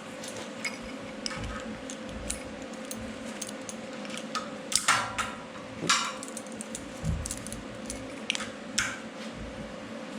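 Metal clinks and knocks as aluminum test strips and tools are handled on a metal welding table, a few louder clanks about five and six seconds in, over a steady hum.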